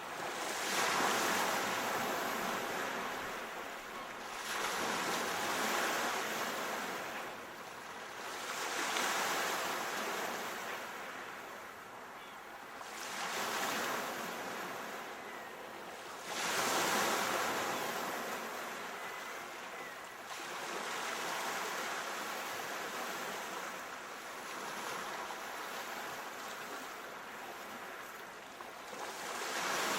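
Ocean surf: a steady hiss of waves breaking and washing in, swelling and fading every four seconds or so.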